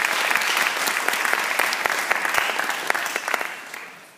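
Audience clapping, a dense patter of many hands that dies away near the end.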